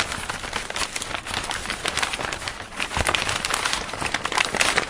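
Dense, irregular crackling made of many small clicks and pops.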